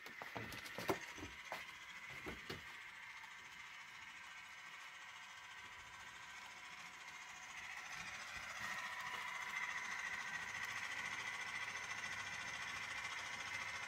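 Small electric motor of a model railway locomotive running with a steady whine and wheel noise on the track. It grows louder about two-thirds of the way in. A few light clicks come in the first seconds.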